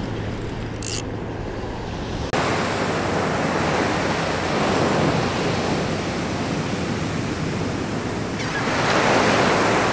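Ocean surf washing onto a sandy beach, a steady rushing that steps up suddenly about two seconds in and swells again with a breaking wave near the end.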